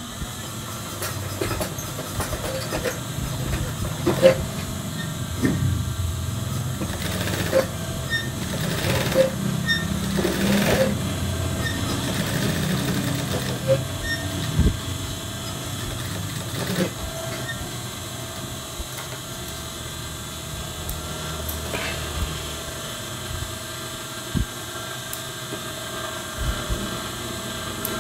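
Industrial sewing machine running and stitching: a steady motor hum with scattered light clicks, louder for several seconds early on.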